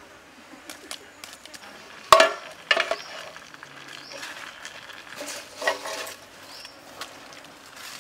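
A few sharp clinks and knocks of a metal bowl and bamboo sticks being handled over a cooking fire, the loudest about two seconds in, with more near three and six seconds.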